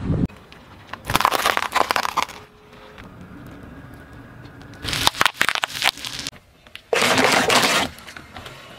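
A car tyre rolling over objects on asphalt, crushing them in three separate bursts of crackling and crunching. The middle burst is a quick run of sharp pops: bubble wrap bursting under the tyre.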